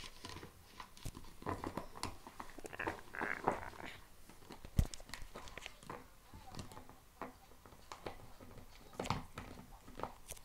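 Shiba Inu puppy chewing a green plastic bottle toy: irregular crackling and crunching of the plastic under her teeth, with scattered clicks.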